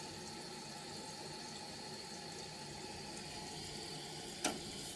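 Toilet tank fill valve running, with water hissing steadily into the newly installed tank as it fills. About four and a half seconds in there is a short click, and the hiss then stops as the float reaches its level and shuts the valve off.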